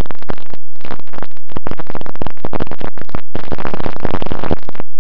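Loud, distorted rushing and crackling noise of wind and the electric motor on an RC plane's onboard camera microphone in flight, cutting in and out in several bursts with short dropouts between them.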